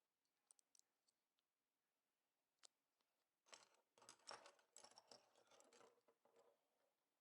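Faint handling noises: a few light clicks and a single tick, then from about halfway in roughly three seconds of scratchy rustling and clicking, like small parts being worked by hand.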